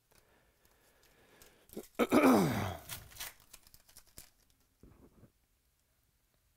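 Foil trading-card pack torn open and its wrapper crinkled, with a loud rip about two seconds in that falls in pitch, followed by sharp clicks of cards being handled.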